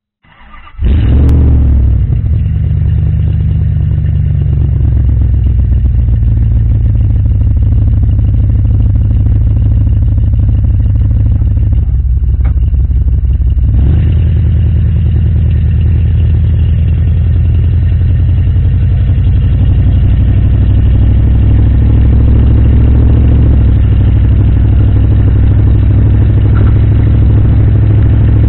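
A 1995 Dodge Ram pickup's engine running through its under-truck exhaust, picked up loudly from underneath the truck at the rear axle: a low, steady drone that comes in less than a second in. It changes briefly about halfway through, and the truck is rolling over snow by the end.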